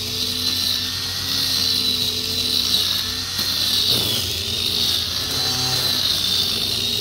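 Electric metal-cutting grinder converted into a grass trimmer, running with a steady high whine as its spinning motorcycle clutch and brake cables slash through tall grass. The whine dips briefly about four seconds in.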